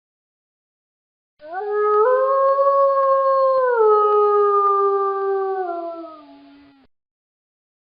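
Wolf howling: one long howl of about five seconds, starting about a second and a half in. It rises in steps at the start, holds, steps down in pitch about halfway and slides lower as it fades out.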